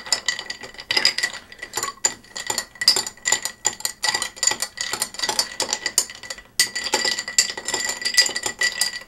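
Metal bar spoon stirring ice in a pint mixing glass: a quick, continuous clinking of ice and spoon against the glass, with a ringing tone from the glass. The clinking breaks off briefly about six and a half seconds in. The stirring chills and dilutes a Manhattan before it is strained.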